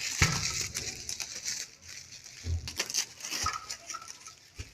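Handling noise from unboxing an immersion water heater rod: rustling of the packaging with a few knocks and clicks as the rod and box are moved about.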